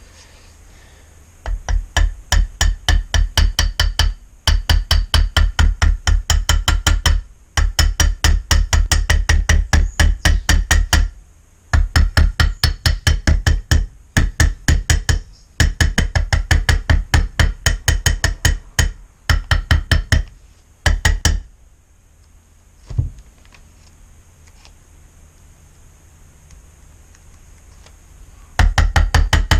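Aerosol spray can of primer being shaken hard, its mixing ball rattling about ten times a second in runs of a few seconds with short pauses: mixing the paint before spraying. It stops for several seconds about two-thirds of the way through, with one knock, then starts again near the end.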